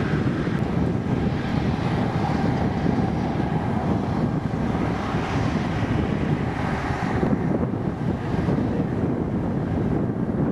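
Wind buffeting the camera microphone: a steady, rumbling noise that holds level throughout.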